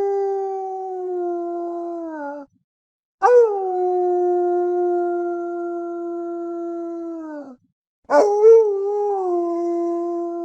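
Wolf howling in long, steady single notes. One howl ends about two seconds in, a second runs for about four seconds, and a third starts near the end, each dropping in pitch as it fades out.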